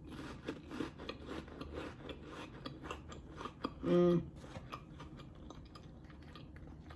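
Close-miked chewing of a cracker topped with smoked oyster and cheese: crunching and wet mouth clicks. About four seconds in there is a short hummed "mm", then the chewing goes on more quietly.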